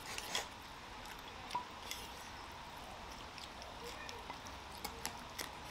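Chopsticks clicking faintly against a bowl as someone eats from it: a few short, sharp clicks, scattered and quiet.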